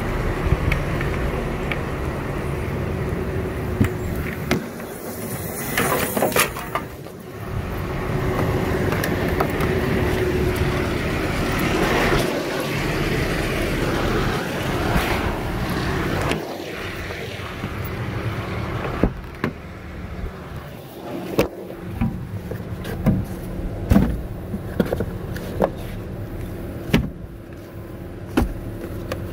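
Outdoor vehicle noise with an engine running steadily. In the second half there is a string of short sharp knocks and clicks.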